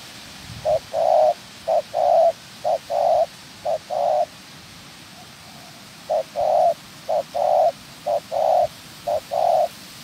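Spotted dove cooing: a short note followed by a longer one, repeated four times at about one per second, then after a pause four more times.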